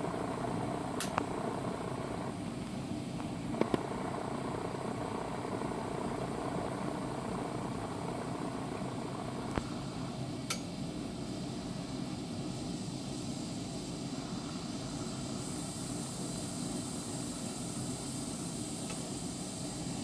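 Steady mechanical whir of a running machine, with a few short sharp clicks over it.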